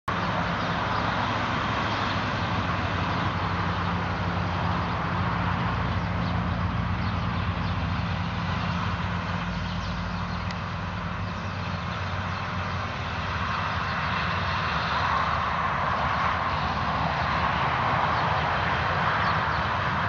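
Massey Ferguson 7278 combine harvester running steadily while harvesting wheat: a low engine drone under an even rush of noise from the cutting and threshing machinery. The rush grows louder about two-thirds of the way through.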